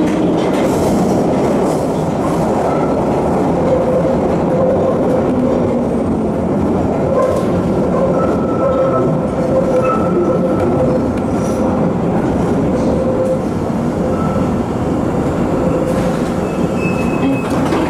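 London Underground Bakerloo line 1972 Stock train running between stations in the deep-level tube tunnel, heard from inside the carriage: a loud, steady rumble of wheels on rail with faint wheel squeals coming and going.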